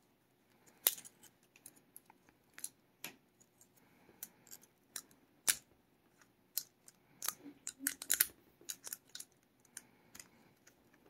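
Needle-nose pliers and a steel lock-pick turning tool clicking and scraping against an antique brass warded padlock as the tool is forced to turn in the keyway: irregular small metal clicks, with a closer cluster of them about two-thirds of the way through.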